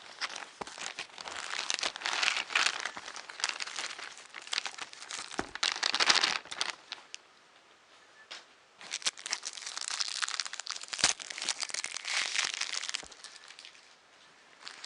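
Plastic parts packaging being cut and pulled open, crinkling and crackling in two long spells with a short lull between.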